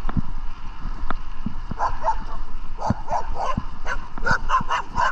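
A dog barking: a quick series of short barks starting about two seconds in, coming faster, about three a second, toward the end.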